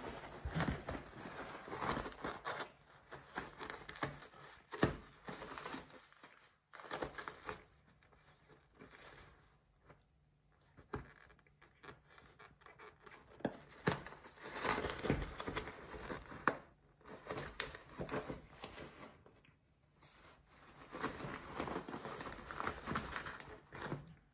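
Paper towel roll crinkling and tearing as a cat claws and grapples with it. The sound comes in bouts of rustling with sharp clicks, broken by near-quiet pauses.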